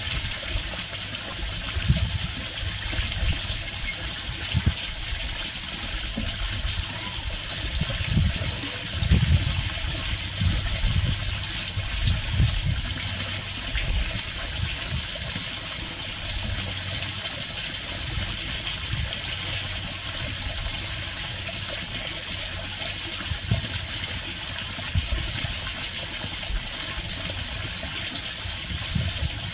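Steady rushing, water-like noise with irregular low rumbles; no distinct bird calls stand out.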